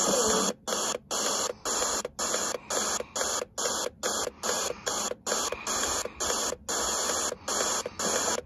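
FM static hiss from a Bôrne portable radio's speaker as it is tuned up through empty frequencies, the hiss cutting out briefly at each tuning step, about two steps a second.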